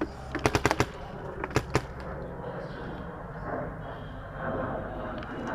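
Tacamo Blizzard magfed paintball marker firing at close range: a rapid string of about five shots about half a second in, then two more single shots shortly after.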